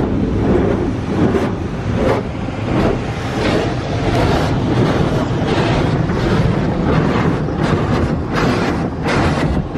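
Automatic tunnel car wash spraying water against the car's body and glass, heard from inside the cabin: a steady loud rush with repeated surges over a low rumble of the wash machinery.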